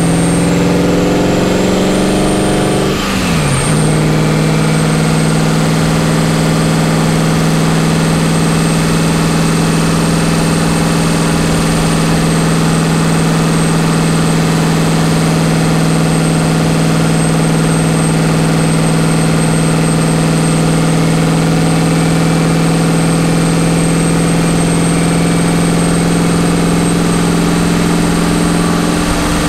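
Nissan 300ZX (Z31) widebody's turbocharged engine climbing in revs for about three seconds, the revs dropping sharply, then running at a steady cruise. Steady wind and road noise over it.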